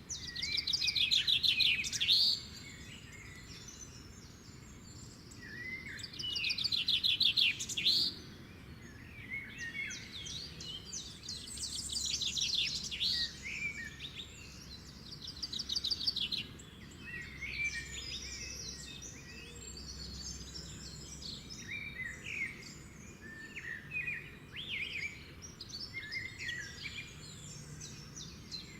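Songbirds singing: a loud, rapid trilled phrase at the start and again about six seconds in, then a steady chorus of chirps, whistles and short warbles from several birds.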